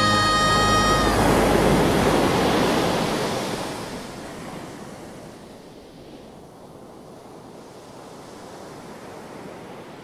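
Sea surf washing in over a pebble shore: a loud rush of breaking water in the first few seconds that dies down to a softer, steady wash. A held musical note cuts off about a second in.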